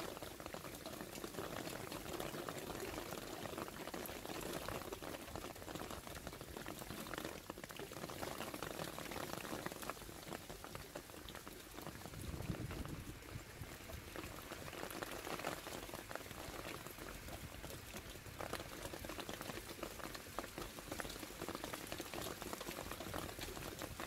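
Rain mixed with small hailstones falling on leaves and paving: a steady, dense patter of fine ticks.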